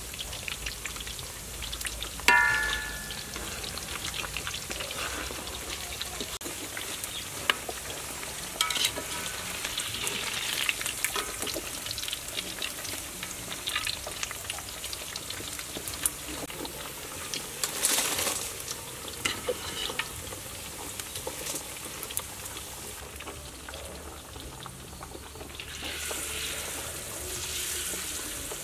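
Meatballs and fish cakes deep-frying in a wok of hot oil, a steady sizzling hiss, with metal utensils clicking and scraping against the wok now and then. The loudest event is a single ringing metal clink about two seconds in.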